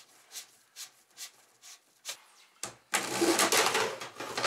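Light plastic taps and handling noises, about two or three a second, then from about three seconds in a much louder continuous rattling rasp as the ribbed accordion plastic duct hose is pulled out to length.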